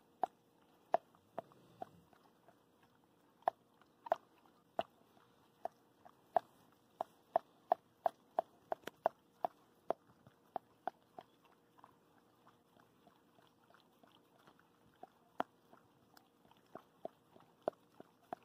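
Wet clicking mouth sounds of a Border Collie mother licking and chewing at her newborn puppy and its birth sac: a quiet, irregular run of short clicks, one to three a second, thickest in the middle.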